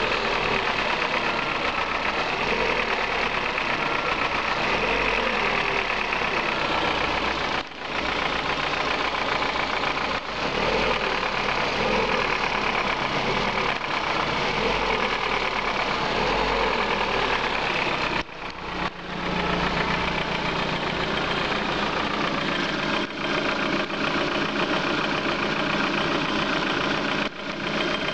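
Lada Priora's 21126 1.6-litre 16-valve engine running at idle with a knock the owner cannot identify. The sound drops out briefly a few times, and after about two-thirds of the way it turns steadier, with a more even hum.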